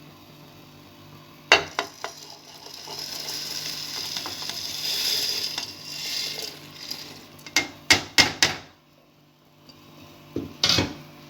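Chickpeas and lentils being poured into a cooking pot: a knock against the pot, then a rustling hiss of the pour for several seconds, followed by a few sharp clicks and clinks of pot and utensils.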